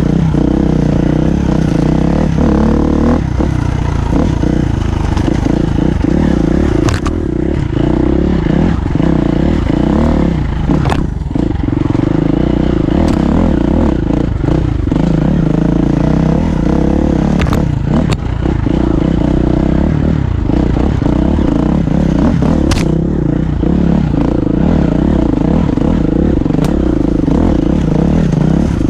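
Enduro dirt bike engine running on the trail, its revs rising and falling with the throttle. Sharp clacks and rattles from the bike come through every few seconds.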